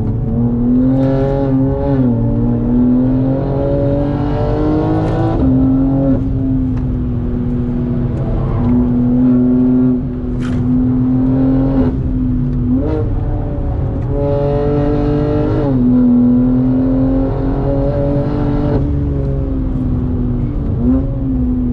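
BMW G80 M3's twin-turbo straight-six heard from inside the cabin under hard track driving, holding high revs with several brief dips and jumps in pitch at gear changes, over steady road and wind noise.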